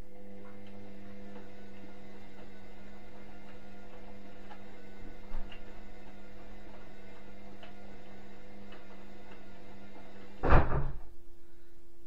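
Indesit front-loading washing machine running with a steady hum and faint ticking, with a soft knock about five seconds in. About ten and a half seconds in, a loud clunk comes and the hum cuts off.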